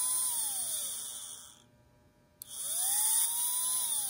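Small brushed DC motor from an RC boat, switched on and off by a little rocker switch on freshly soldered wiring: it runs with a high whine and hiss, winds down with the pitch falling about a second and a half in, then after a click spins up again with the pitch rising and winds down near the end.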